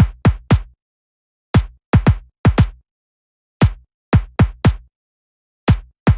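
Electronic drum-machine beat with no other instruments: sharp kick-drum hits, each with a short low boom that drops in pitch, coming in clusters of two to four with short silences between.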